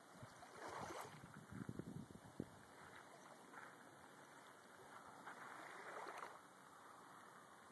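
Faint small waves lapping on a sand beach, the wash swelling about a second in and again around six seconds. Low rumbling on the microphone with a short tick about two seconds in.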